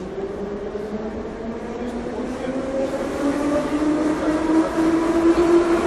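Moscow metro train pulling away, heard from inside the car: the electric traction motors whine in a rising pitch that climbs in steps as the train gathers speed, growing louder throughout.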